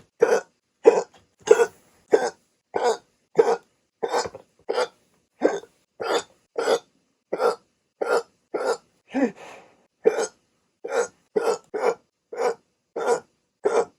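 A person's hiccups in a rapid run, about three every two seconds, each a short, sharp voiced hic. A little past halfway one comes out longer and lower.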